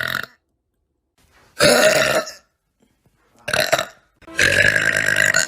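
A run of loud human belches cut back to back with dead-silent gaps between them: the tail of one just at the start, a second about a second and a half in, a short one near the middle, and a long one near the end.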